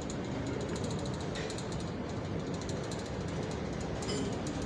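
Steady dining-room background noise, a low rumble with scattered light clicks.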